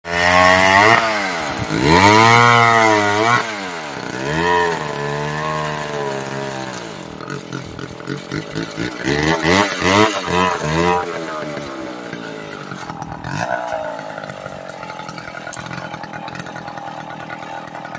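Vintage Sears David Bradley two-stroke chainsaw (model G125) cutting a log. Its engine pitch swings up and down three times in the first few seconds, runs with a fluttering, uneven pulse near the middle, and settles to a lower, steadier running sound near the end.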